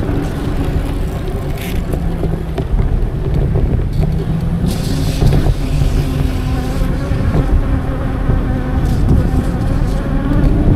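Electric bike motor humming under way, its pitch shifting a few times with speed, over a steady low rumble of wind on the microphone.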